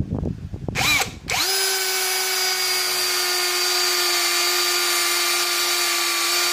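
Brushless cordless drill in drill mode (no hammer), with a 7 mm bit boring into steel angle bar: a short blip of the motor about a second in, then it runs up to a steady, even whine under load.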